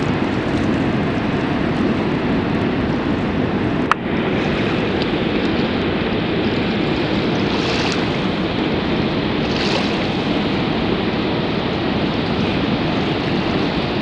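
Waterfall rushing: a steady, even noise of falling water, with one sharp click about four seconds in.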